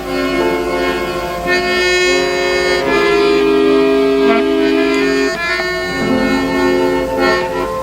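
Background music: a slow melody of long held notes on a reedy wind instrument.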